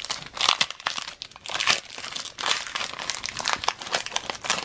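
Foil wrapper of a trading card pack crinkling and tearing as it is ripped open and handled, in irregular crackles.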